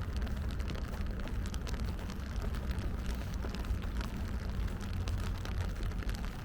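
Rain falling in a city street: many small, irregular drop ticks over a steady low rumble.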